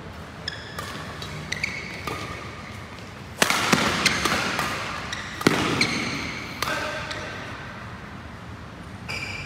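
Badminton rally: rackets striking the shuttlecock with sharp cracks, the two hardest hits about three and a half and five and a half seconds in, each echoing in the hall. Court shoes squeak on the floor between shots.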